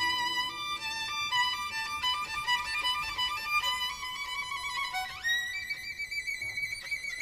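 Violin playing a soft, slow single melody line, sliding up about five seconds in to a high held note.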